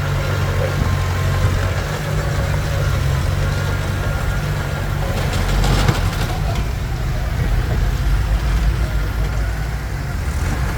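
Komatsu D21P bulldozer's diesel engine running with a steady low drone. A short burst of clattering noise comes a little past halfway.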